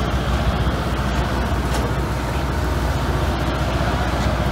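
Motor vehicle engine running with a steady low rumble.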